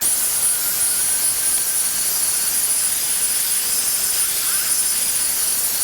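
A loud, steady rushing hiss, mostly high-pitched, with a thin steady high whine running over it.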